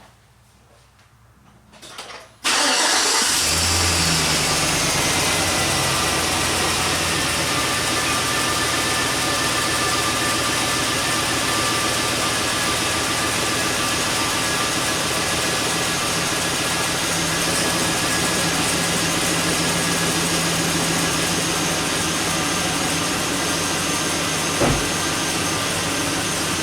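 2005 GMC Sierra pickup's V8 engine starting about two seconds in and then idling steadily. The engine computer has logged a misfire on cylinders 5 and 4. A single short knock is heard near the end.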